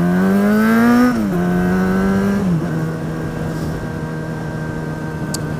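Motorcycle engine pulling hard under acceleration, its pitch rising for about a second, then dropping as it shifts up. It holds for a moment, drops again with a second upshift about two and a half seconds in, and settles to a steady cruise.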